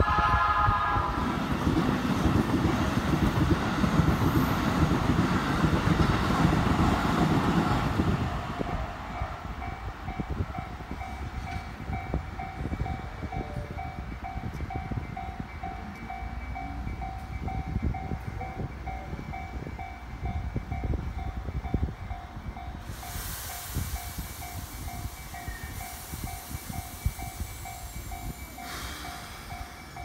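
Japanese railway level-crossing warning bell ringing in a steady, rapid repeating pattern. A passing train's rumble runs under it for the first eight seconds or so, then fades.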